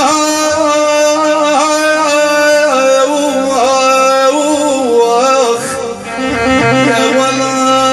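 Arabic-style music on an electronic keyboard (oriental 'org'): an ornamented, string-like melody with bending slides over a steady held note. Near the end the melody briefly drops away and a low bass part comes in.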